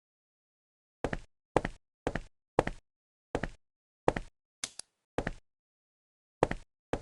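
A series of about ten short knocks, each a quick double or triple tap, coming roughly two a second with a couple of longer gaps, with dead silence between them.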